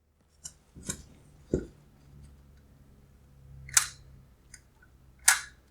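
Scattered sharp clicks and taps of hands and tools working on an Alfa Romeo Giulia headlight assembly, with one dull knock about one and a half seconds in, the sharpest click near the end.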